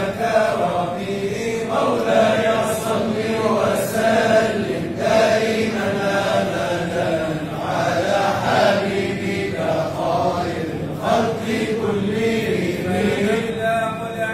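Men's voices chanting a Mawlid devotional song in praise of the Prophet Muhammad, in long melodic phrases that bend up and down.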